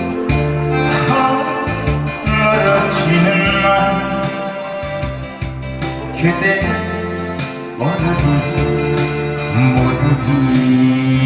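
Man singing a Korean song into a microphone over a recorded karaoke backing track with a steady bass line.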